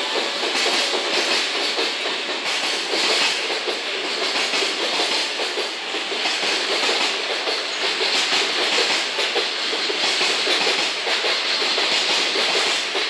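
Koki container flatcars of a freight train rolling past, their wheels making a steady noise on the rails.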